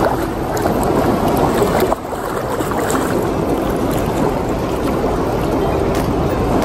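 Shallow seawater splashing and sloshing close to the microphone as a child swims through it.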